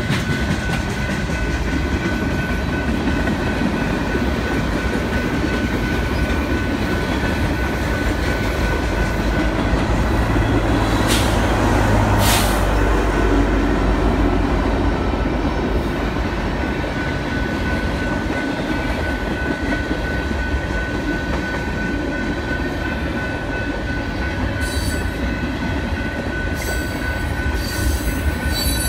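Freight train rolling through a grade crossing: steady rumble and clatter of steel wheels on rail, with a steady high ring from the crossing bell under it. About halfway through, a mid-train BNSF diesel locomotive passes and adds a deeper engine hum along with two sharp knocks. A few metallic clanks from the cars come near the end.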